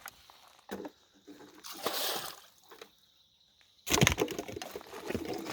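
Water splashing and pouring in short rushes, the loudest starting about four seconds in: leftover live shiners and their water being emptied from a bait bucket.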